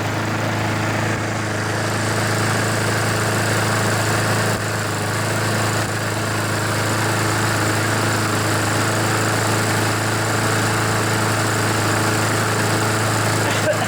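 Honda GCV single-cylinder lawn mower engine running at a steady speed. It is being run to burn off excess oil that got into the muffler and engine after the mower was tipped up.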